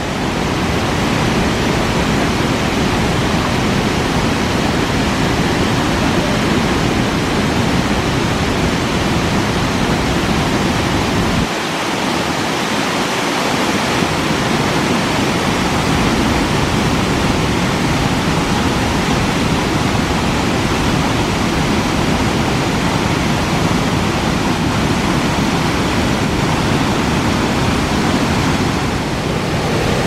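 Waterfall pouring into a river pool: a loud, steady rush of falling and churning water, its low rumble briefly thinning about a third of the way through.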